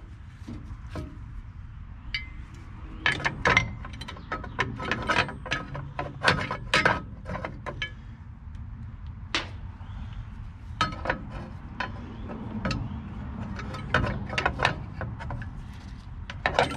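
Irregular metallic clicks and knocks of hand tools and drum-brake hardware being handled and fitted, with a steady low hum underneath.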